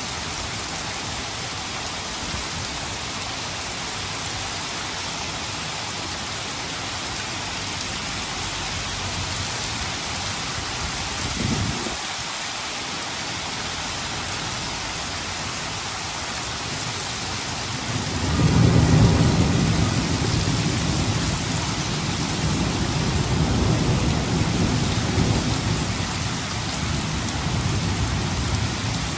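Steady rain hissing. About eleven seconds in there is a brief low rumble, and about eighteen seconds in a long low rumble of thunder rolls in and lasts around ten seconds.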